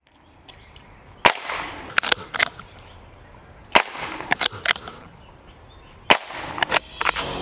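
Diana Stormrider .177 PCP air rifle fired three times, about two and a half seconds apart, each sharp crack followed by a couple of quieter sharp clicks.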